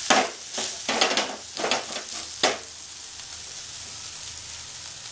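A metal spatula scrapes against a nonstick frying pan about five times in the first two and a half seconds as a thin lacy pancake is loosened and turned over, followed by steady sizzling of the batter frying in oil.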